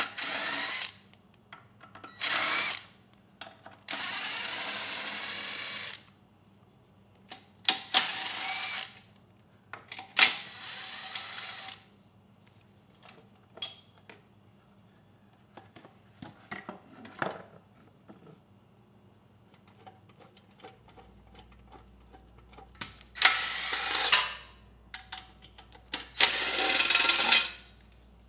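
Ryobi cordless 1/4-inch impact driver backing out bolts on a Briggs & Stratton generator engine. It runs in about seven short bursts, the longest about two seconds, with a long pause in the middle. Light clicks and clinks of fasteners and parts fall between the bursts.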